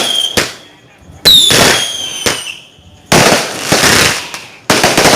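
Fireworks going off: sharp bangs, one trailed by a high whistle that falls slightly in pitch for about a second. From about three seconds in come two longer bursts of dense crackling hiss.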